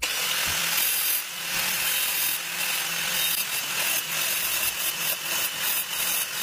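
Angle grinder with a diamond disc cutting through a sheet of small mosaic tiles: a steady, loud grinding hiss over a low motor hum.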